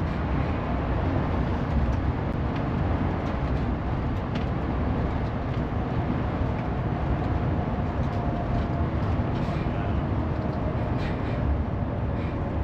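Steady engine and road rumble heard from inside a moving tour coach.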